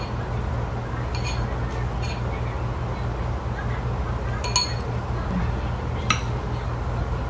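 Chopsticks clinking against porcelain bowls and plates a few times as food is picked up and served, over a steady low hum.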